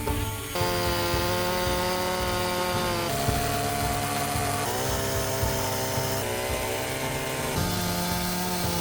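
Chainsaw running at high revs while cutting into a wooden log, its engine pitch dropping and rising several times as the cut loads it.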